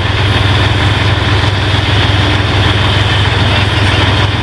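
Fire truck's diesel engine idling steadily with a deep, even hum.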